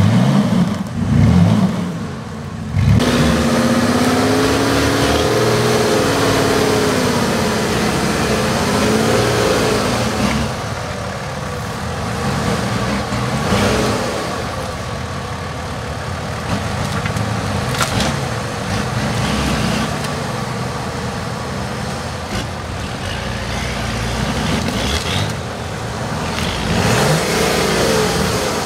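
Off-road 4x4 engines revving, the pitch swinging up and down several times, over steady engine noise as the vehicles crawl across rough ground.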